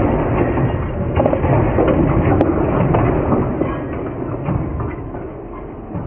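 Heavy rumbling and clattering of a large steel tank sliding off the back of a lorry and crashing to the ground, full of metal knocks; the noise dies down after about four seconds.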